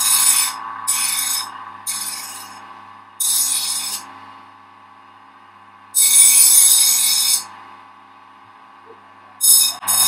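Bench grinder running with a steady hum while a serrated kitchen knife is touched to its vulcanite (rubber-bonded abrasive) wheel in about six short hissing passes, the longest about six seconds in. These are light passes along the back side of the serrated edge.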